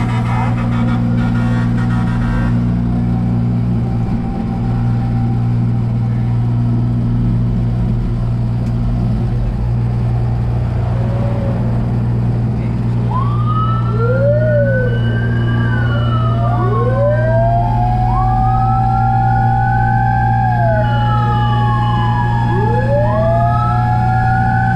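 Steady low engine drone of a fire truck, joined about halfway through by several fire truck sirens wailing, each rising and falling and overlapping one another.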